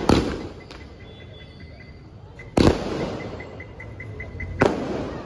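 Fireworks bursting overhead: three sharp bangs about two seconds apart, each trailing off in a fading hiss.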